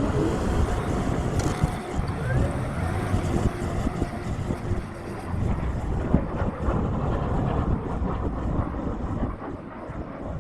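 New Holland T7.260 tractor engine running steadily under load, pulling a six-furrow plough, heard as a continuous deep rumble.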